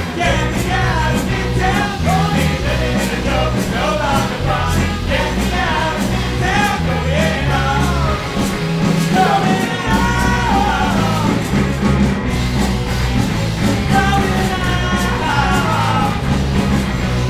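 Live band playing an uptempo rock-style song: a stepping bass line and drums under a bending lead melody, steady and loud.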